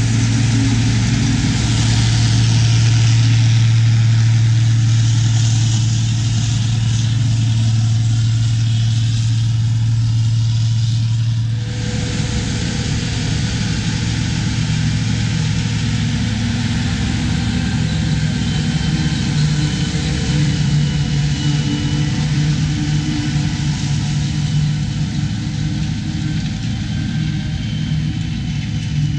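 New Idea Uni-System self-propelled forage harvester chopping standing corn close up: a steady engine hum under the rush and rattle of the corn head and chopper. About twelve seconds in it switches abruptly to a White 195 tractor pulling a Gehl 1260 forage harvester through the corn, a steady, somewhat quieter machine sound with a faint high whine coming in past the middle.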